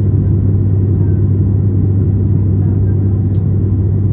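Cabin drone of an ATR 72-600 turboprop in flight: its six-bladed propellers and engines give a loud, steady, deep hum over a low rumble.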